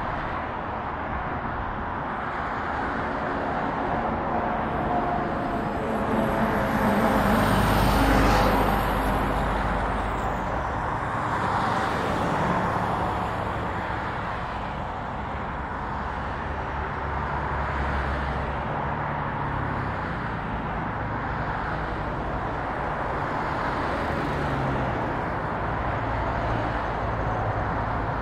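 Jet engine noise of a departing Boeing 787-10 at takeoff power: a steady roar with a low rumble. It swells for a few seconds about seven seconds in, with a high whine that rises and falls.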